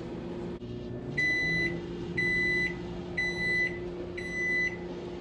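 Microwave oven running with a steady low hum, then four beeps, each about half a second long and a second apart, signalling that the heating cycle is done. The hum stops near the end.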